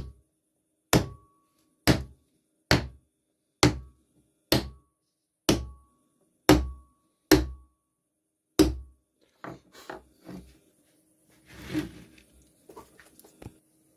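A hammer striking a small wooden block held against the edge of a wooden clock face, tapping the board into place: about ten sharp knocks roughly a second apart, some with a short metallic ring from the hammer head. Then a few lighter knocks and the board being handled on the workbench.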